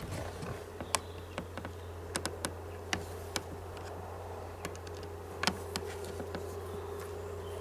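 Scattered small metallic clicks and taps of a screwdriver working the screws that hold a chainsaw's new bar-oil pump to the crankcase, over a steady low hum and faint buzz.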